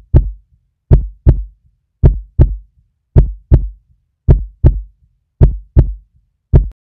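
Heartbeat sound effect: double low thumps, lub-dub, repeating evenly a little over once a second with silence between.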